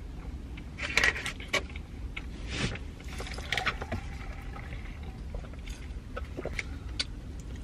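People biting and chewing a crispy fried chicken sandwich: scattered crunches and crackles, the loudest about a second in, over a low steady hum.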